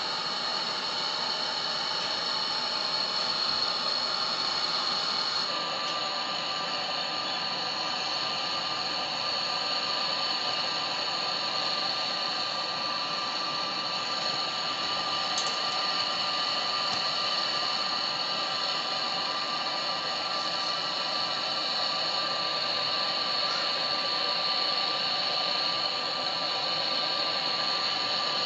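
Hand-held gas torch burning steadily on copper air-conditioner refrigerant tubing: a continuous hiss with a faint steady whine in it, heating a pipe joint to braze a refrigerant leak.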